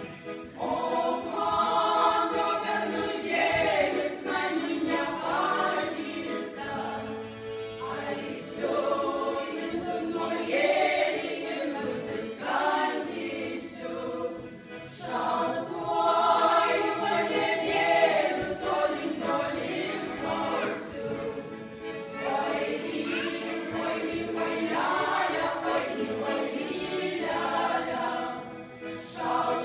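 Women's folk choir singing a Lithuanian folk song together in phrases, accompanied by an accordion.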